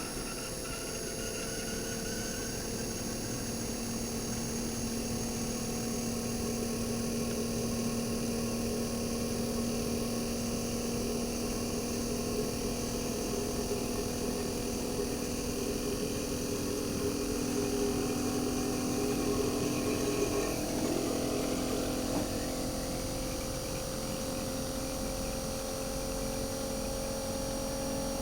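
RECHI 43W26SH single-rotary inverter compressor from a Sharp AU-J25XY air-conditioner outdoor unit, running on its own with a steady hum and a high electronic whine. In the second half its pitch creeps slowly upward as the inverter speeds it up.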